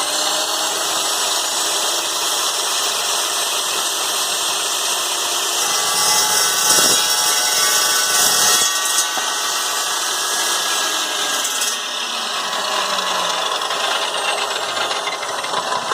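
Evolution metal-cutting circular saw running and cutting through aluminum heatsink stock: a loud, steady whine, harsher through the middle of the cut, then dropping in pitch in the second half as the blade spins down.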